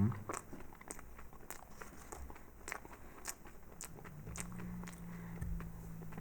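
Biting into and chewing a jelly-filled marshmallow with a crispy sugar crust: a bite at the start, then a scatter of small crunching crackles as the sugar coating breaks.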